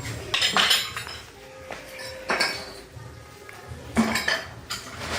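Hard objects clinking and clattering as they are handled: a few sharp knocks with brief ringing, in small irregular clusters.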